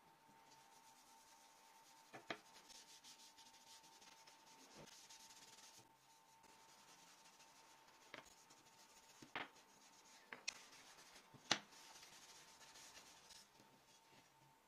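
Faint back-and-forth rubbing of a small yellow block over the surface of wooden squares, with several light knocks of the wooden pieces on the worktable, the loudest about three-quarters of the way through.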